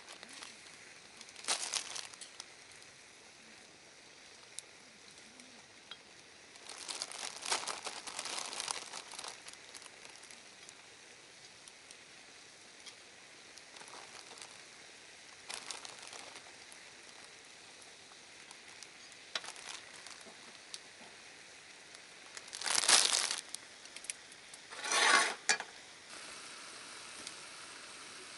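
Intermittent crinkling and rustling, several separate bursts with the loudest two close together late on, then a steady hiss that starts near the end.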